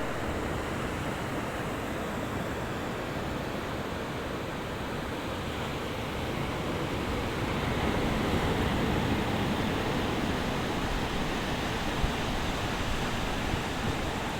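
Sea waves washing on the shore in a steady rush of surf, swelling a little louder about halfway through.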